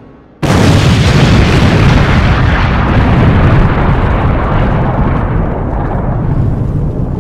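Explosion-style intro sound effect: a sudden loud boom about half a second in, followed by a long noisy rumble that slowly fades.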